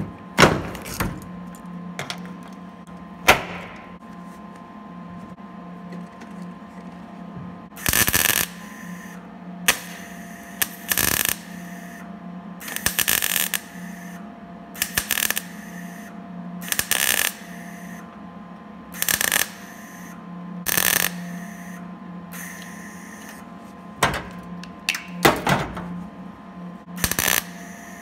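MIG welder tack- and stitch-welding a sheet-steel corner patch panel into a car body. The arc crackles in about a dozen short bursts of half a second to a second each, starting about eight seconds in, over a steady low hum. A few sharp knocks come in the first few seconds.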